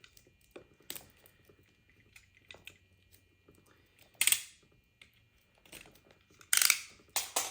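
A cardboard product box being handled and opened: scattered small clicks and taps, with two louder rustling, scraping bursts, about four seconds in and again near the end.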